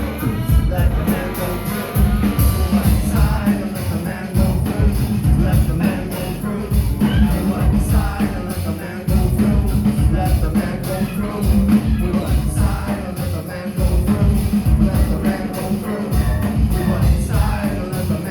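Live rock band playing loud, bass-heavy music with drums, an instrumental stretch of the song.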